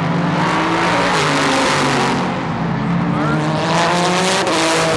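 Prototype race cars passing at speed, engines climbing in pitch as they accelerate, with a sudden drop at an upshift about four and a half seconds in.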